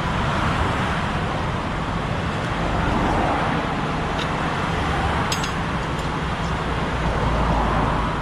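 Steady rumble and road noise of a moving vehicle, with a few faint ticks about halfway through.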